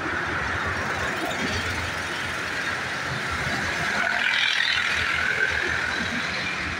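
Wind rumbling on the microphone over the steady distant roar of a jet airliner on approach, which grows a little louder about four seconds in.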